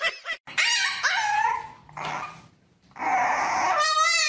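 Puppies howling and growling in drawn-out cries that waver in pitch, ending in a loud, high, strained cry.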